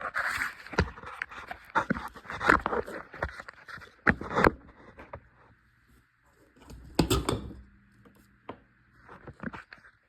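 Handling noises: a run of knocks, clicks and rustling, a quieter stretch, then another burst of scraping and rustling about seven seconds in.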